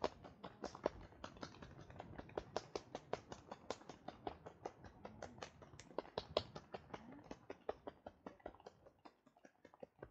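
Hands tapping quickly on a person's shoulders and back in a partner massage: an uneven run of light taps, about five a second, thinning out near the end.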